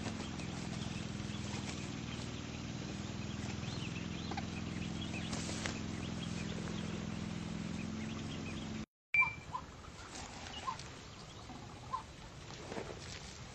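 A steady low mechanical hum, like a small motor or engine running, breaks off abruptly about nine seconds in. After a sharp click come a few short, high chirps about a second apart.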